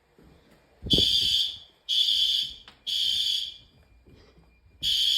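System Sensor horn/strobes of a fire alarm system in alarm, sounding the temporal-3 evacuation pattern: three half-second blasts with half-second gaps, a pause of about a second and a half, then the next set starting near the end. A low thump sounds with the first blast.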